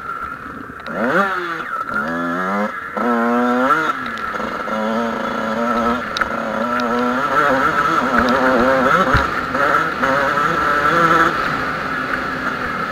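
A Kawasaki KX two-stroke motocross bike accelerating hard, its engine note climbing steeply three times in quick succession in the first few seconds, then running on at rising and falling revs.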